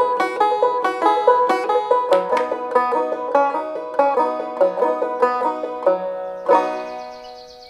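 Soundtrack music: a plucked-string instrumental with quick picked notes, ending on a final struck chord about six and a half seconds in that rings out and fades away.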